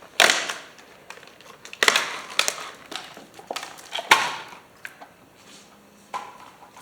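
Packaging around a spool of MIG welding wire being handled and opened: irregular crinkling and rustling with a few sharp clicks. The loudest bursts come at the start, around two seconds in and around four seconds in.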